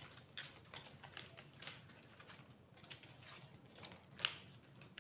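Dry banana-leaf fibre strips rustling and clicking faintly as hands thread them over and under into a woven square, with one sharper click about four seconds in.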